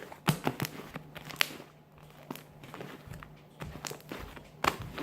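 Homemade glue-and-shaving-cream slime squeezed and stretched by hand, giving irregular soft clicks and crackles, with a few sharper snaps about a second in and near the end, over a faint steady hum.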